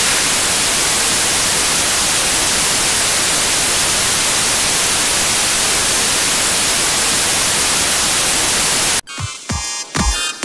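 Loud, steady TV static hiss (white noise), which cuts off suddenly about nine seconds in.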